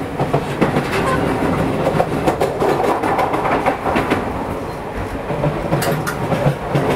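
Tokyu 5050 series electric train running, a steady rumble of wheels on rails with repeated clicks from the track.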